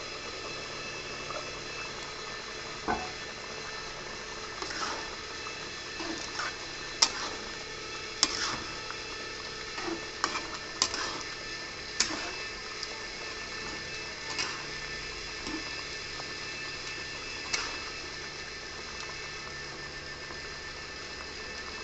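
Pork curry simmering in a metal kadhai while a metal spatula stirs it, scraping and clinking against the pan every second or two over a steady bubbling hiss.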